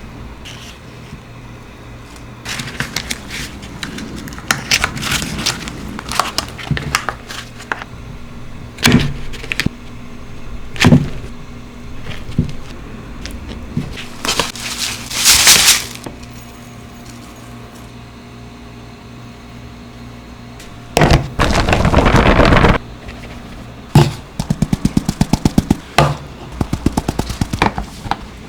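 Kitchen baking sounds: scattered clinks and knocks of bowls and utensils, a short hissing rustle around the middle, a louder rough scraping burst about two-thirds in, then a run of quick even taps, about four to five a second.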